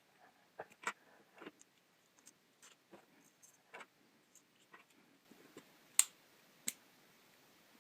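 Scattered small clicks and knocks of the parts of a gas blowback pistol magazine being handled and fitted back together, with two sharper clicks about six and seven seconds in.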